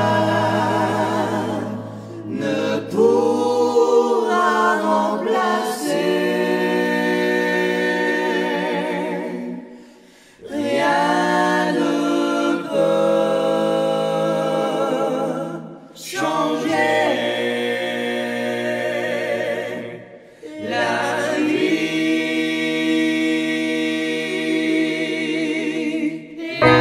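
A small group of male voices singing a French Christian hymn (cantique) a cappella in harmony. Phrases are broken by brief breaths about 10, 16 and 20 seconds in.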